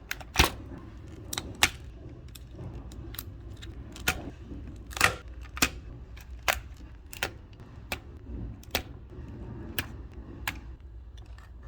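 Sharp plastic clicks and small knocks, irregular and roughly one to two a second, as wire connectors are unplugged from a laser tag gun's main board.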